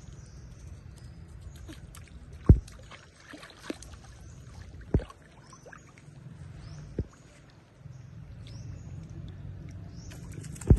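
Pool water sloshing and splashing as monkeys swim, over a steady low rumble. Three sharp thumps stand out, about two and a half, five and seven seconds in. Short high chirps come and go throughout.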